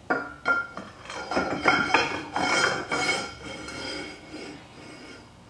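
A steel pipe sliding down inside a steel axle tube, scraping and clinking against the tube and the socket, with a metallic ringing. The clinks come thick in the first three seconds and die away after about four.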